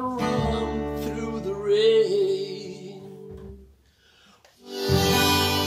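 Acoustic guitar, harmonica and upright bass playing a song's outro, with a wavering held note over the chords. The music drops out briefly about four seconds in, then a loud strummed guitar chord comes back in.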